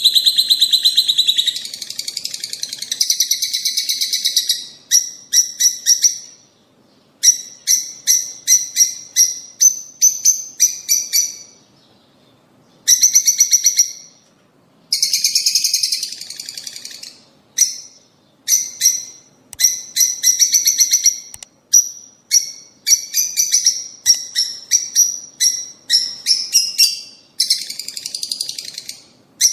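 Lovebirds chattering: rapid runs of shrill, high-pitched chirps in bursts of one to a few seconds, separated by short pauses.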